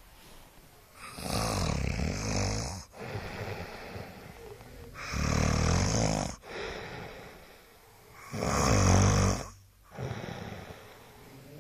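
Someone snoring: three loud snores, each one to two seconds long and about three and a half seconds apart, with quieter breaths between them.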